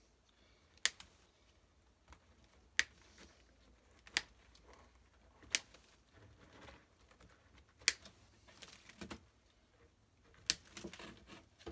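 Wire cutters snipping the support wires in a wooden beehive frame: six sharp snips, one every one to two and a half seconds, with faint rustling of old wax comb between.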